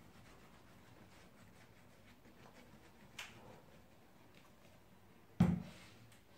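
Faint dabbing and rustling as glue is worked from a plastic squeeze bottle onto a foam mascot foot, with a small click about three seconds in. About five seconds in, the bottle is set down on the table with a single sharp knock.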